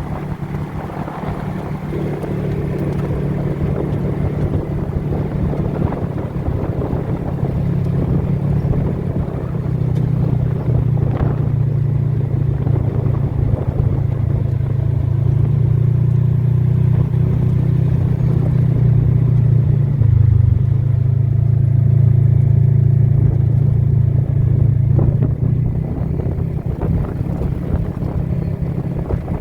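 A motor vehicle's engine running steadily with a low drone, slowly getting louder.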